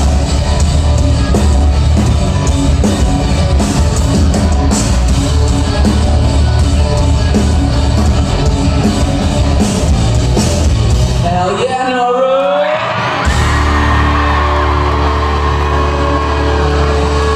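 Live rock band playing loudly, drums and electric guitar heard through a phone microphone in the crowd. About eleven seconds in, the drums and bass drop out for a moment under a wavering high line, then the band comes back in on long held notes.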